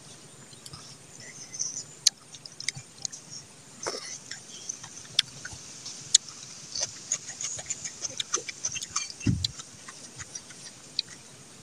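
Eating sounds of rice eaten by hand: chewing and lip smacks with many small sharp clicks, and a low thump about nine seconds in.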